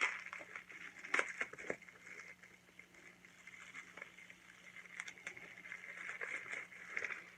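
Small packaging being handled and opened, with sharp clicks and snaps in the first two seconds, then a lighter crinkling rustle with small ticks.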